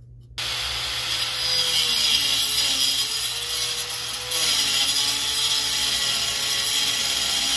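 Angle grinder with a cutting disc cutting through the old steel actuator tower on a chilled water globe valve. It starts suddenly about half a second in and runs steadily, its motor pitch dipping and recovering as the disc bites into the metal, with a change in tone about four seconds in.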